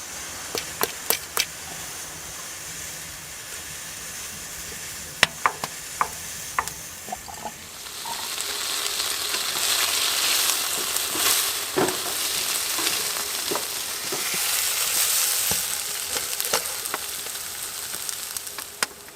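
Asparagus frying in a pan: a few sharp clicks and clinks of pan and utensil, then from about eight seconds in a loud sizzle that swells and eases as it is stirred.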